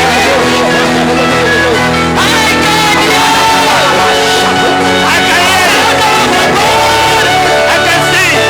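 Loud live praise music with voices singing and shouting over sustained chords.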